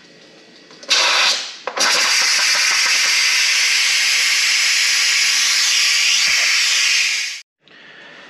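Electric pressure cooker venting steam through its release valve at the end of a high-pressure cook: a short blast about a second in, then a loud, steady hiss of escaping steam that cuts off suddenly near the end.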